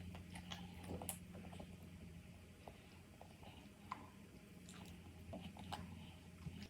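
Faint close-up chewing and wet mouth clicks of someone eating, with a low steady hum beneath that cuts off near the end.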